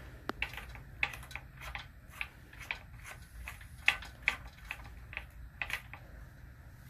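Irregular light clicks and ticks of a motorcycle speedometer cable's screw-on fitting being turned by hand and worked off the front wheel hub, the sharpest click about four seconds in.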